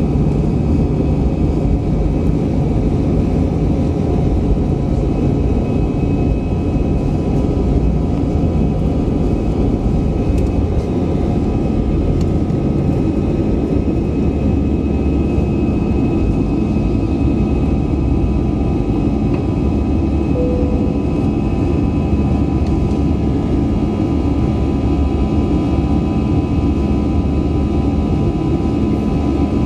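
Airbus A320-200's jet engines running steadily: a loud, even rumble with a steady whine above it.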